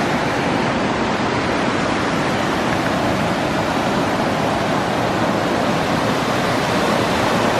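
Fast-flowing mountain creek rushing over rocks: a loud, steady hiss of water that does not change.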